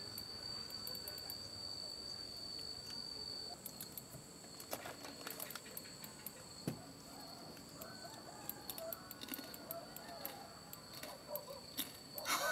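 An insect's steady, high-pitched trill that stops about a third of the way in, followed by scattered soft clicks and faint, wavering bird calls.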